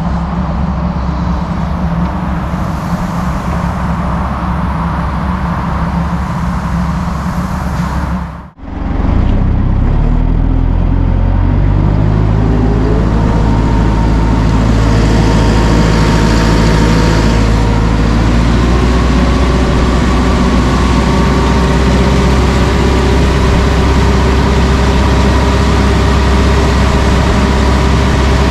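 Diesel engine of a construction machine running steadily. About eight seconds in it cuts out abruptly, then the engine revs rise over a few seconds and hold steady at high revs.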